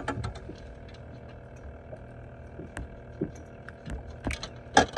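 Scattered light knocks and clicks of a freshly caught catfish being handled on a fishing boat's deck, with a sharp knock near the end, over a faint steady hum.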